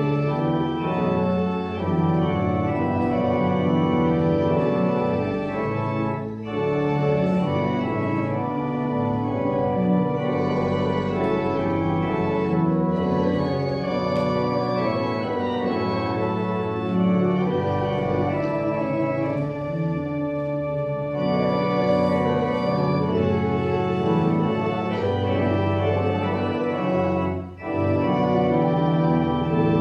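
Church organ playing held chords of the hymn-of-praise music, with short breaks between phrases about six seconds in and near the end.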